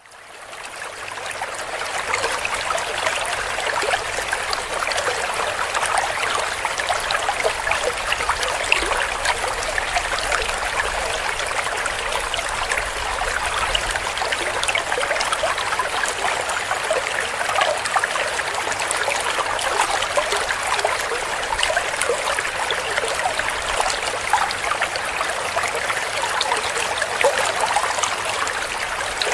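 Clear stream flowing and gurgling, a steady rush of water flecked with small splashes and trickles, fading in over the first two seconds.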